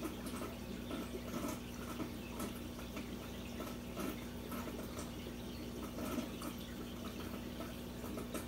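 Aquarium water trickling and dripping with irregular small splashes, over a steady low hum.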